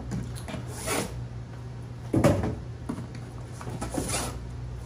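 Plastic storage drawers sliding out of a padded RC hauler bag, a few scraping slides with a louder knock about two seconds in.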